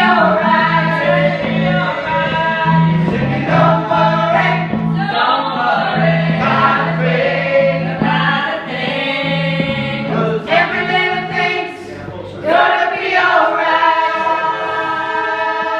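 A choir singing in gospel style, phrases rising and breaking every second or so, over a bass line of repeated short notes.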